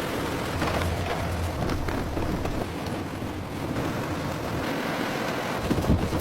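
Industrial machinery running: a steady rumbling noise with a low hum in the first two seconds and a few scattered knocks and clatters.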